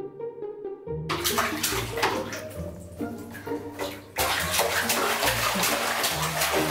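Bath water splashing as a toddler plays in a standing baby bath, in a quick run of small splashes. It starts about a second in over soft background music, and gets louder and busier about four seconds in.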